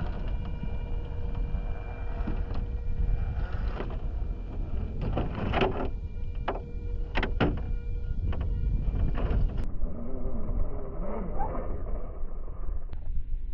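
Radio-controlled scale rock crawler's electric motor and gears whining steadily as it climbs over rock, with a few sharp knocks around the middle. Heavy wind rumble on the microphone underlies it.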